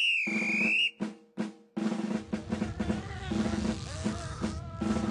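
A short whistle-like tone lasting about a second, two sharp knocks, then a busy snare drum beat with a bass drum that runs on.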